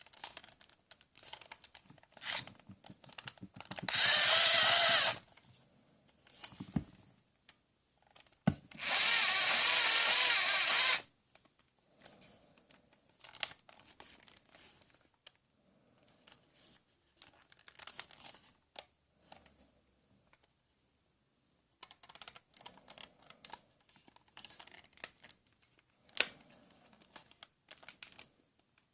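Toy power tool running in two bursts, one about a second long and one about two and a half seconds long, with clicks and light knocks of plastic toy tools being handled in between.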